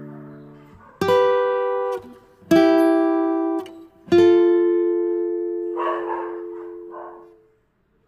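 Background music: an acoustic guitar plays three strummed chords about a second and a half apart, the last one left ringing and fading away.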